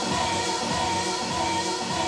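Dance music with a steady beat under held chords.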